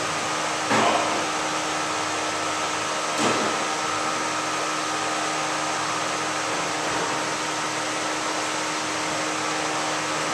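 Steady drone of a large drum fan running, with two brief knocks about a second and three seconds in.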